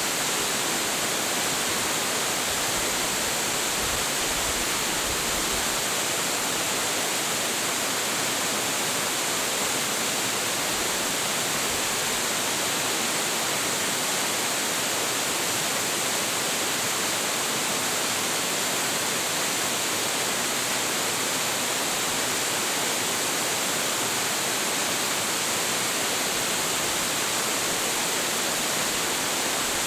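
A large, high-volume waterfall pouring steadily, a constant even roar of falling and crashing water.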